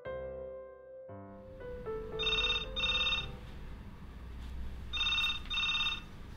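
White desk landline telephone ringing with an electronic double ring: two pairs of short rings, about three seconds apart. Soft piano notes die away before the first ring.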